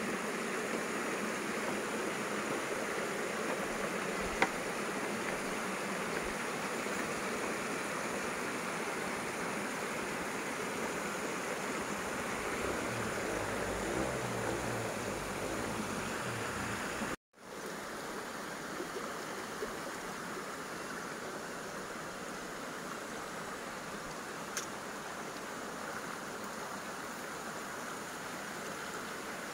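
Steady rushing of a mountain stream, an even hiss of flowing water. It cuts out for a moment about 17 seconds in and goes on a little quieter.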